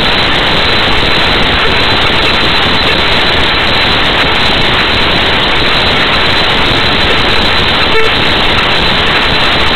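Loud, steady static hiss filling the sound track in place of the programme's audio, with a brief click about eight seconds in: the sign of a corrupted recording.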